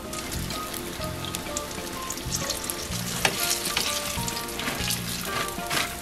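Battered eggplant slices deep-frying in hot oil: a steady sizzle with dense crackling that grows busier and louder from about three seconds in, as the pieces are stirred and lifted out with a mesh skimmer.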